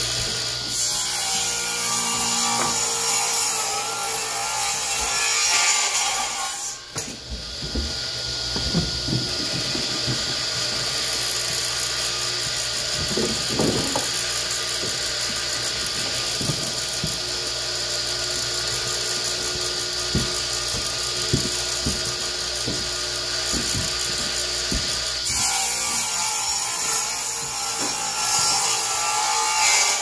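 DeWalt Powershop radial arm saw running, its blade crosscutting a bundle of cherry and oak 2x2s, with a short dip in the noise about seven seconds in.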